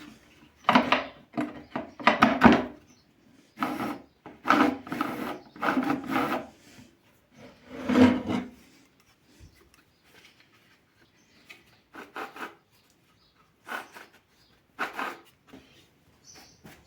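Wooden drilling sled being slid into and out of its close-fitting wooden jig: wood rubbing on wood in a series of short scraping strokes, louder in the first half and fainter and sparser after about ten seconds.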